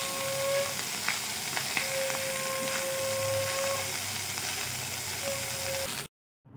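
Fried rice sizzling in a nonstick frying pan while it is stirred and tossed with a silicone spatula, with scattered light scraping clicks. The sound cuts off abruptly about six seconds in.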